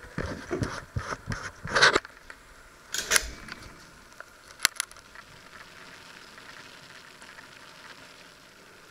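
Handling noise from a camera being picked up and moved: a run of knocks and rubbing in the first three seconds, two sharp clicks about halfway through, then only a faint steady background noise.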